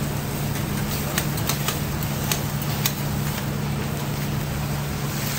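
Metal spatulas clicking and scraping on a flat iron teppanyaki griddle, a handful of sharp clicks over a steady low hum.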